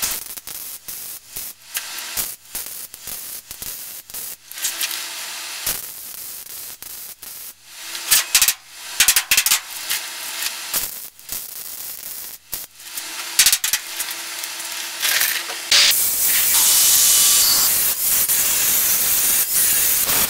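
Gas-shielded MIG welder stitching a sheet-steel rocker panel onto a truck cab: short runs of crackling, sizzling arc noise broken by brief pauses between welds. About sixteen seconds in, a steady, louder rushing noise takes over.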